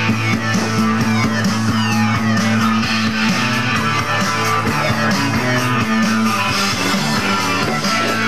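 Instrumental music with no singing: a steady, held bass line under high sweeps that glide downward during the first few seconds.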